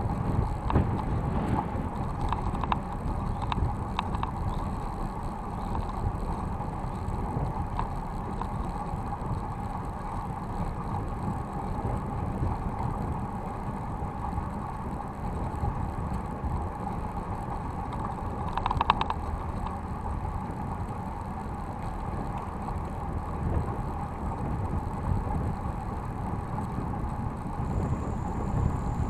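City bike rolling along an asphalt bike path, picked up through a handlebar-mounted camera: steady tyre and road rumble with scattered clicks and rattles from the bike, and a short cluster of sharper rattles about two-thirds of the way through.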